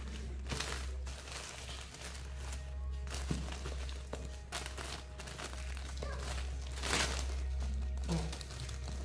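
Gift-wrapping paper crinkling and rustling in irregular bursts as it is folded and pressed around a box, over a steady low hum.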